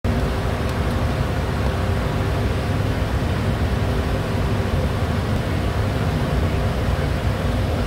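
Steady cockpit noise of a Bombardier Challenger 350 business jet in flight: an even rush of air with a low hum underneath and a few faint steady tones.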